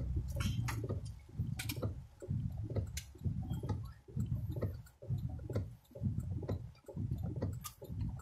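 Windshield wipers sweeping about once a second inside a car in the rain, each stroke a low rumbling swell, with occasional sharp ticks.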